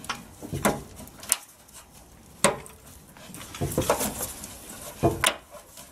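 A handful of sharp clicks and light rattles, irregularly spaced, as brake lines are unclipped from their harness clips.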